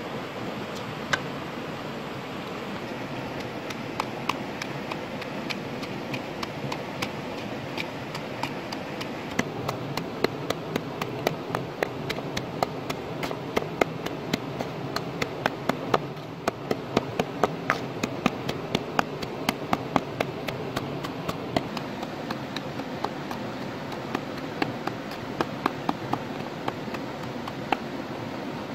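A pestle pounding chilies and garlic in a coconut-shell bowl: many sharp irregular taps, sparse at first and then coming fast, over a steady background hiss.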